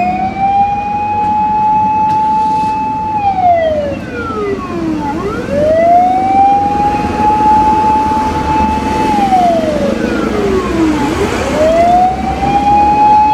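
Japanese fire engine siren wailing on an emergency run. Each cycle climbs to a high tone, holds it about three seconds, then glides down and climbs again, repeating about every six seconds over a low rumble.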